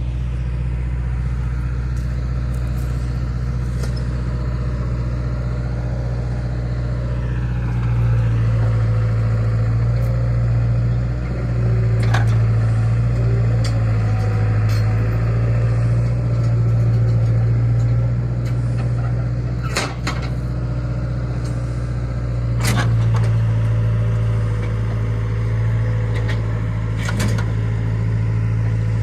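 Motor vehicle engine running with a steady low drone, growing louder about eight seconds in and again later, with a few sharp clicks or knocks over it.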